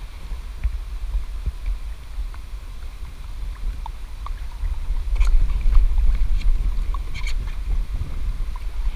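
Canoe being paddled, with short splashes and light knocks from the paddle strokes, the clearest about five and seven seconds in, over a steady low wind rumble on the microphone.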